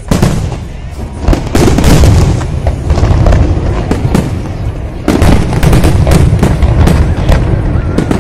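Fireworks display: a dense run of overlapping bangs and crackles from many shells and fountains, getting louder about a second in and again about five seconds in.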